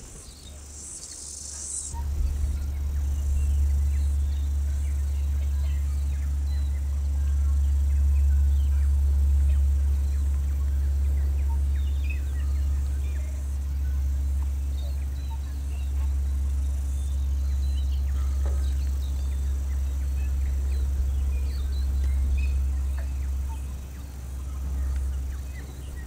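A steady low rumble that sets in about two seconds in, with faint, scattered bird chirps above it.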